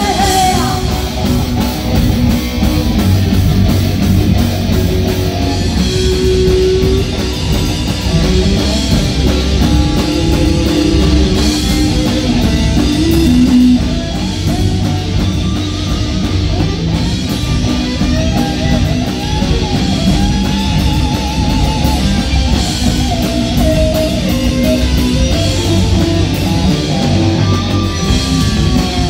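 Live rock band playing an instrumental passage: electric guitars carrying a melody line over bass guitar and a drum kit, with no vocals.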